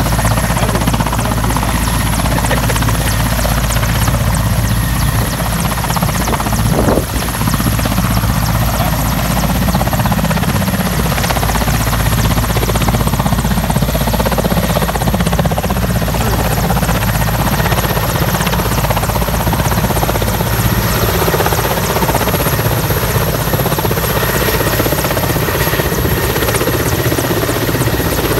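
Mil Mi-17 military helicopter running at take-off power, its main rotor and turbine engines loud and steady as it lifts off the ground and climbs.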